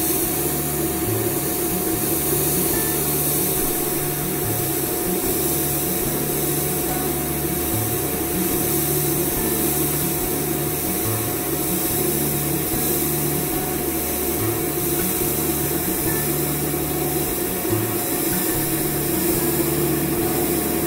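BASE steam sterilizer running, with steam hissing steadily from its accessory wand over a steady machine hum that holds one pitch.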